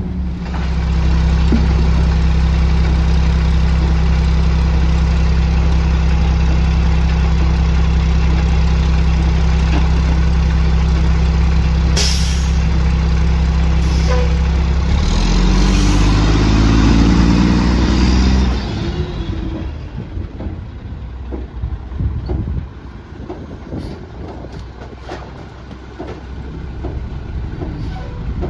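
Mack MR rear-loader garbage truck's diesel engine running with a loud, steady drone, then changing pitch a little over halfway through as the truck pulls past, with a short air-brake hiss along the way. After that the engine runs more quietly under scattered knocks and clanks as bins are emptied into the hopper.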